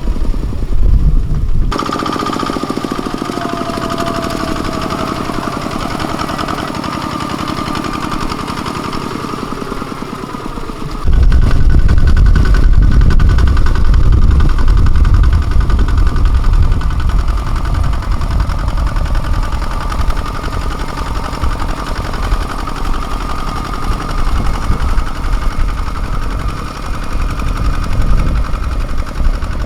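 Kubota ZT155 single-cylinder diesel mini tractor running while plowing, with a knocking beat. It is quieter, with a steady whine, for the first third, then loud and close from about eleven seconds in.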